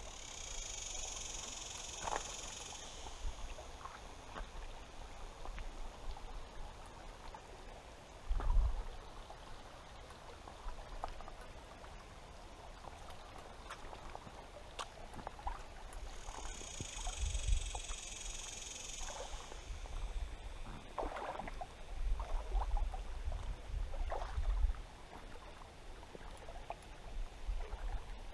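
Outdoor ambience beside a shallow, slow river: faint water flow, low rumbling gusts of wind on the microphone with a few bumps, and scattered small clicks. A high buzz sounds twice, near the start and again a little past halfway, each time for about three seconds.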